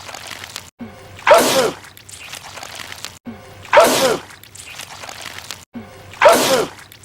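A man sneezing, the same sneeze looped three times about two and a half seconds apart: each a short rising 'ah' and then a loud sneeze.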